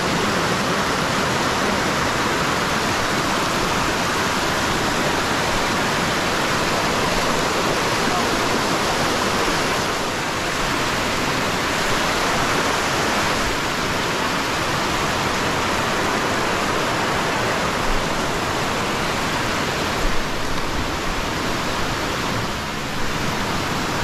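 Shallow river whitewater rushing steadily over rock slabs and cascades.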